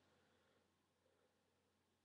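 Near silence, with no audible sound.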